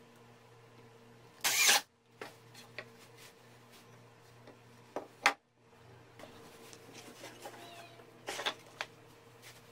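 Wooden bracket pieces being handled on a workbench: a few knocks and clicks of wood on wood, the loudest a short scrape-like knock about a second and a half in and a sharp click past the middle, over a faint steady hum.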